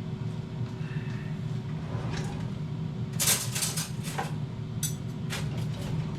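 Breville 1700 W air fryer running with a steady low hum, while kitchenware clatters as it is handled, a cluster of sharp clatters about three seconds in and another about five seconds in.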